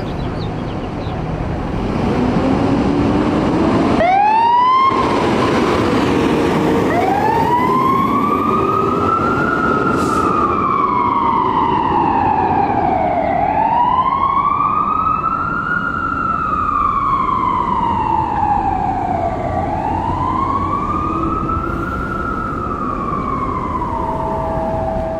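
Fire engine pulling away with its engine running, then its siren starting about four seconds in with a quick upward sweep. A short hiss comes just after, and the siren settles into a slow wail that rises and falls about every six seconds.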